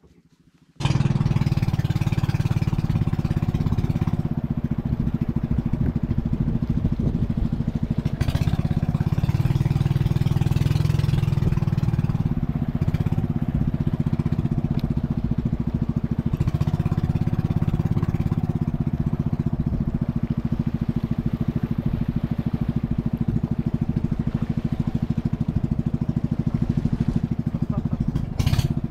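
Small boat engine running steadily.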